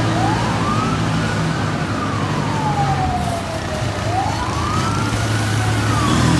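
Emergency vehicle siren in a slow wail, rising and falling twice, over a steady low rumble.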